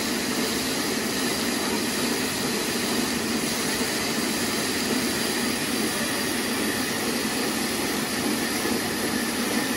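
Band sawmill running steadily with its log carriage, a constant even machine noise with no breaks or changes.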